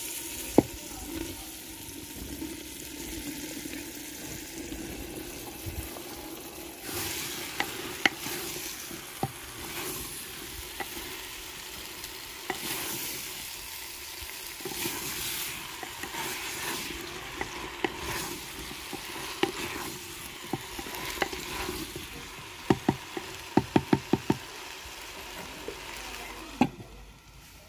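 Potatoes and radish pods frying and sizzling in ghee and masala in a clay handi while a wooden spoon stirs them, with scattered scrapes and clicks. About three-quarters of the way through, the spoon knocks quickly on the clay pot about six times.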